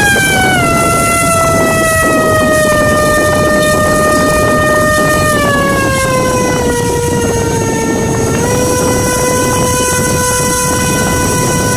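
DYS 1806 brushless motor spinning a 5x4.5 three-blade propeller on a thrust stand: a loud, steady high whine over a rush of prop wash. The whine drops in pitch about half a second in and slides lower again from about five to eight seconds in, then steps up slightly, as the throttle is brought back from full toward hover thrust of about 140 g.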